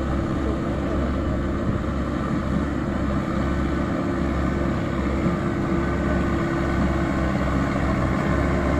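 Sonalika DI 750 III RX tractor's diesel engine running steadily under load as it hauls a trailer piled high with sugar cane, getting a little louder near the end as it comes closer.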